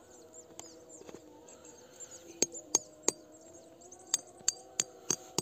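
Hatchet head striking a metal tent peg to drive it into snow-covered ground: eight sharp metallic clinks, a group of three and then five, about three a second, starting about two seconds in.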